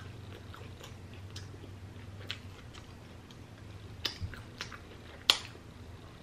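Chewing with scattered wet mouth clicks and lip smacks, the loudest one a little after five seconds in.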